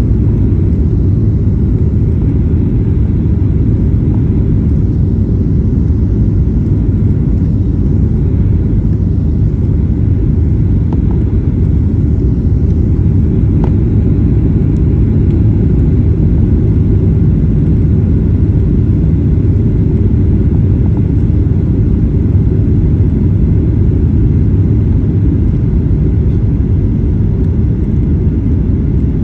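Steady low rumble of a Boeing 737-9 airliner on its approach to land, holding an even level with no rise or fall.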